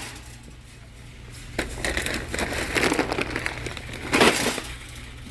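Crinkling and rustling of a large bag of dry dog food being handled, with scattered clicks and one louder bump about four seconds in.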